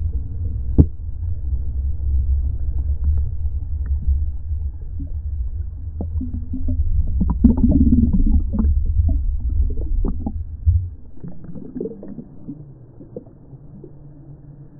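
Churning river water and streams of air bubbles heard from underwater: a muffled, deep rumble with gurgles and a few clicks. The deep rumble drops away about eleven seconds in, leaving quieter gurgling and splashing.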